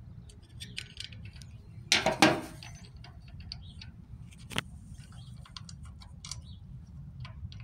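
Small metallic clicks and taps of hand tools on the brass fitting of a generator's natural gas regulator as a nut is loosened, with a louder clatter about two seconds in and a single sharp click a little past halfway, over a faint steady low rumble.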